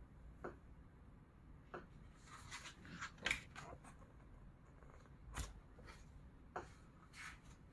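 Paper rustling and soft taps of a paperback manga volume being handled, its dust jacket and pages opened and turned, in several short separate rustles, the loudest about three seconds in.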